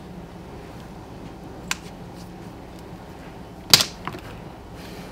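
Plastic lip-gloss tube clacking as it is set down: a faint tap under two seconds in, then a sharp click a little under four seconds in with a lighter one just after, over a steady low hum.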